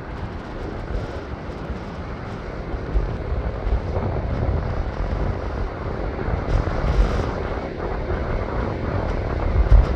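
Wind buffeting the microphone in low, uneven gusts of rumble over the steady wash of surf, growing louder about three seconds in.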